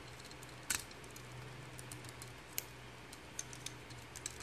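Faint clicks and ticks of a small plastic transforming robot figure's joints and pegs being worked by hand, a few sharp ones scattered through, the loudest about a second in, over a low steady hum.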